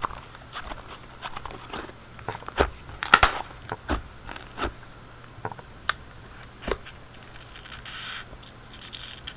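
Slime being kneaded and squished by hand to mix colouring in: irregular sticky clicks and pops, with a short stretch of soft high crackling about seven to eight seconds in.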